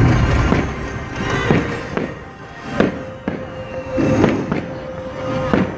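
Aerial fireworks shells bursting in a string of sharp bangs about a second apart, over the show's soundtrack music with a held note.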